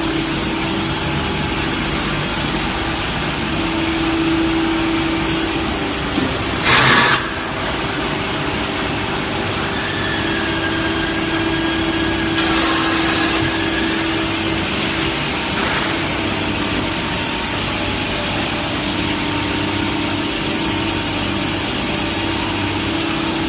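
Pulp-moulding shoe-tree forming machine running with a steady loud mechanical hum. Two short loud hisses stand out, one about seven seconds in and one about thirteen seconds in.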